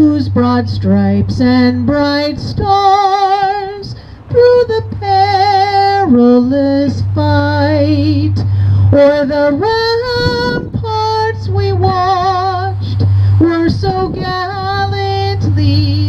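A woman singing solo and unaccompanied into a microphone, a sustained song with strong vibrato on the held notes. A low steady hum runs under it and drops out now and then.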